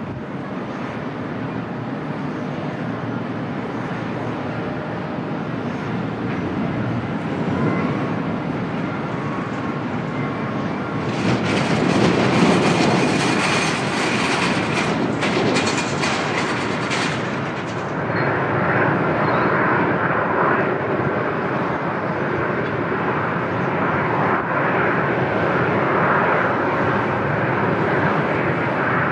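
Boeing 737-800 jet airliner's engines during its landing, a steady rushing sound that swells to a louder, hissier rush about a third of the way in for several seconds before settling to a steady engine sound.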